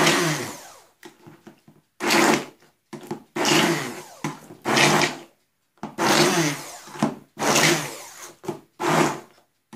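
Hand-held immersion blender run in short pulses: about seven bursts of under a second each, with brief pauses between them. It is pureeing soaked dried figs in a little milk and is kept coarse on purpose, not chopped very fine.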